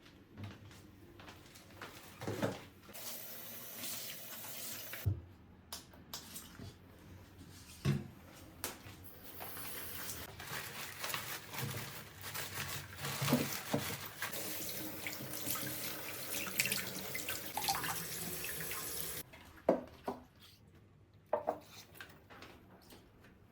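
Water running from a tap into a sink: a short run about three seconds in, then a longer run of about thirteen seconds, with knocks and clatter of things handled under the stream. The water stops about nineteen seconds in, and a few knocks follow.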